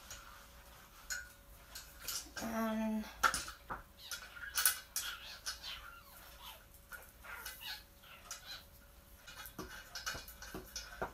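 Scattered clicks, knocks and light rattles of a metal keyboard stand's tubes and plastic fittings being handled and fitted together. About two and a half seconds in there is a short hummed voice sound.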